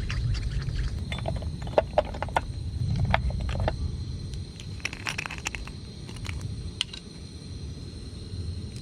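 Light clinks, knocks and scrapes of cooking utensils and dishes during meal preparation, in a quick irregular run that thins out after about seven seconds, over a steady low rumble.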